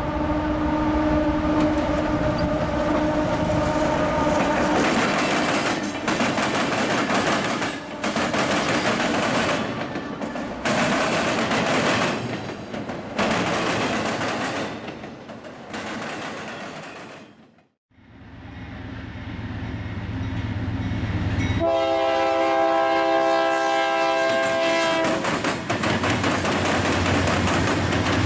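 Freight trains passing at close range. A diesel locomotive horn sounds at first, then the wheels of passing freight cars clatter and rattle. After a brief break, a BNSF diesel locomotive's engine rumbles and it sounds a horn blast of several tones for a few seconds, with another blast starting at the very end.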